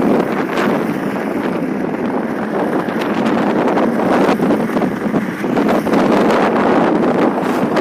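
Wind buffeting a phone microphone on a moving motorcycle: a loud, steady rushing noise with no clear engine note.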